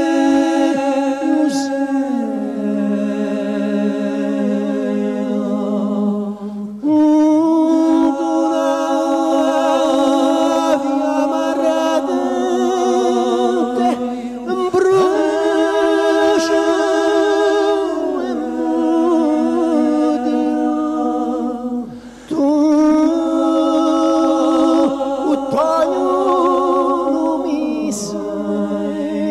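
A cappella vocal music: several voices singing in harmony without instruments, long held notes with vibrato in phrases of about seven seconds, each ending with a downward slide and a short pause.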